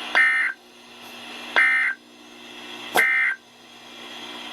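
NOAA Weather Radio's Emergency Alert System end-of-message signal: three short SAME digital data bursts, about a second and a half apart, sent to mark the end of the special marine warning. A faint radio hiss swells between the bursts.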